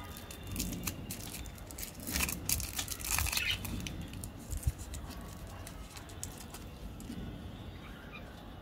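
Plastic and foil candy wrapper crinkling and crackling as fingers twist it open around a toffee, busiest from about two to three and a half seconds in.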